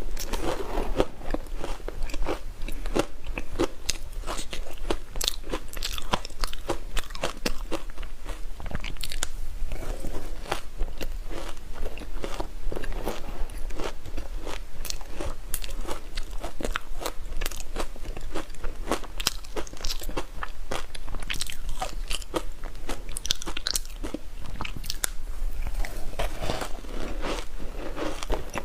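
Close-up crunching of ice being bitten and chewed, with dense, irregular sharp cracks continuing without pause.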